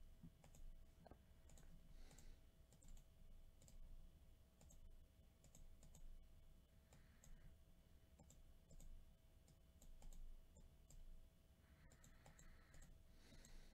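Faint, scattered clicks of a computer mouse and keyboard over near silence.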